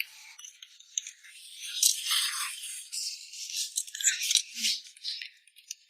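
Broken wall switch being worked loose from its wall box: irregular scraping and light rattling.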